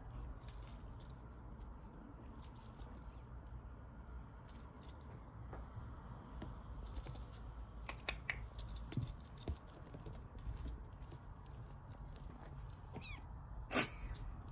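Two British shorthair kittens scuffling in a crocheted cord basket: soft scratching and rustling of paws and claws on the woven cord with scattered small clicks, an occasional faint kitten mew, and one louder sharp sound about a second before the end.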